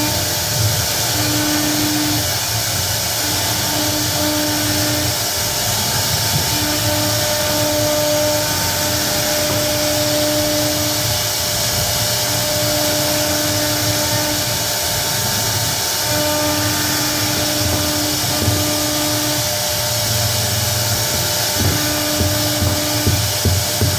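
CNC router cutting particleboard: a steady, loud hiss of the spindle and cutting, with a low hum that switches on and off every second or two as the machine moves.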